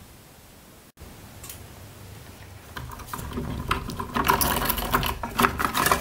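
Bar clamps being loosened and taken off a glued-up cutting board: metal clicking and rattling of clamp screws, handles and sliding jaws. It starts about three seconds in and grows busier and louder toward the end.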